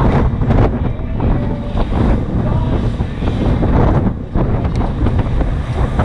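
Strong storm wind buffeting the camera microphone on an open ship deck: a loud, gusting rumble that eases briefly a little after four seconds.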